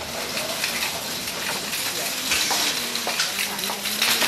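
Busy shop ambience: a dense wash of clattering and clinking, such as shopping trolleys and bottles, with faint voices in the background.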